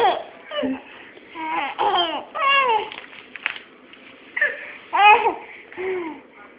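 Baby babbling: several short high-pitched vocal sounds with pitch sliding up and down, separated by brief pauses.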